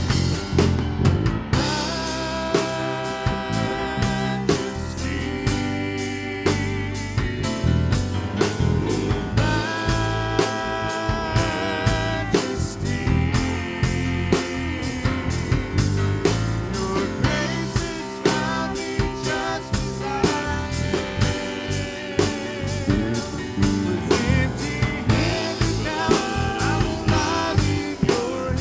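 Live worship band playing an instrumental passage between sung lines, with a drum kit keeping a steady beat under guitar and sustained melody notes.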